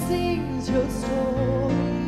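Live worship music: a woman singing a slow, held melody with vibrato over sustained keyboard chords.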